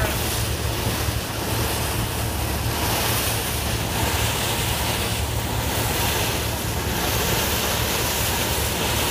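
Steady, continuous rushing roar of gas blowing out of a well at a drilling rig during a blowout, with a deep rumble underneath and no break.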